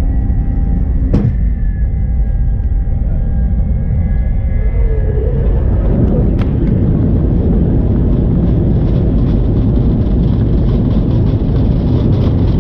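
Airliner jet engines running at takeoff power: a loud, steady rumble with a thin high whine over it. Two brief sharp clicks, about a second in and about six seconds in.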